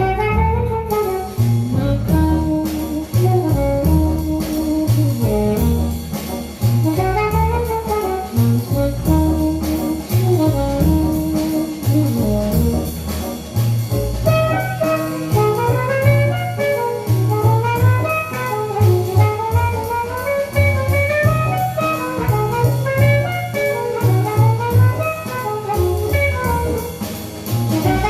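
Jazz recording with a brass and saxophone melody over a walking low bass line, played back through Bose 701 loudspeakers.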